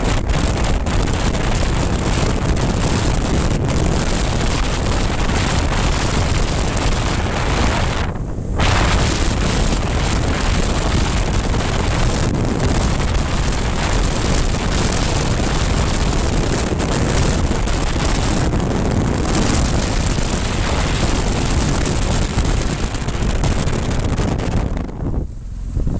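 Wind buffeting the microphone on a moving BMW R1200GS Adventure motorcycle, with its flat-twin engine running underneath. The wind noise drops out briefly about eight seconds in, and it eases again near the end as the bike slows for a junction.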